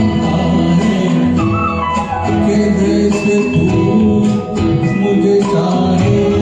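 Backing-track music of a Hindi film song, with a melody over plucked-string accompaniment.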